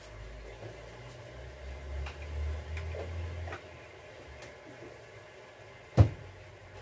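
Low rumble with a few faint clicks, then a single sharp knock about six seconds in.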